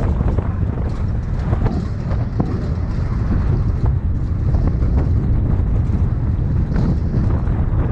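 Wind buffeting the microphone over a steady low rumble, as from a running vehicle, with a few faint clicks.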